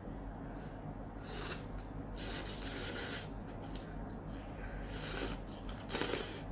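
Ramen noodles being slurped in several short, airy bursts, the longest about a second long.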